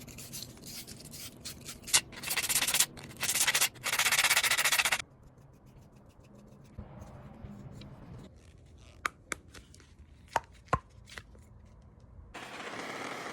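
Hand-sanding copper pipe, in rough bursts of scraping that grow longer over the first five seconds, as the pipe is cleaned for soldering. A few sharp clicks follow, and near the end a steady rushing hiss starts up.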